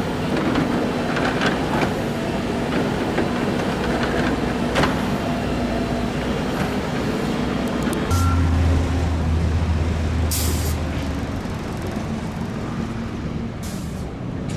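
Road traffic noise, with a heavy vehicle's engine rumbling by about eight seconds in, and two short hisses near the end.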